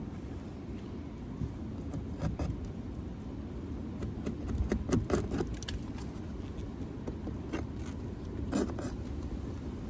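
Metal hive tool scraping and clicking against a wooden hive frame in short bursts, prying and scraping off propolis and wax. Wind rumbles on the microphone underneath.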